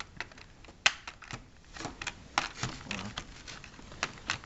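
Irregular sharp clicks and small snaps: the tie wires holding a model in its box being cut with snips while the plastic packaging is handled.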